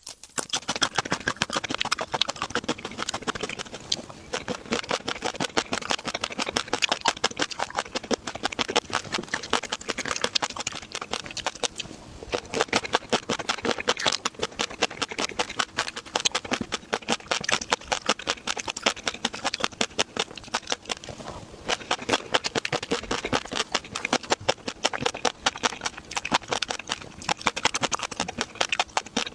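Close-miked eating of seafood: a dense, nonstop run of wet clicks, smacks and crunches from chewing, with a few short pauses.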